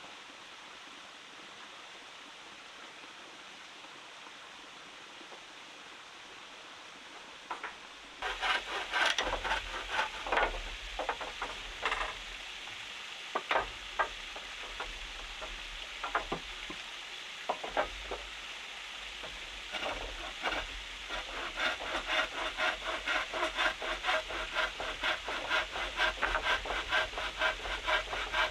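A hand tool scraping on wood: uneven rasping strokes start about eight seconds in and settle into a quick steady rhythm of about two to three strokes a second near the end. Before that there is only a steady low hiss.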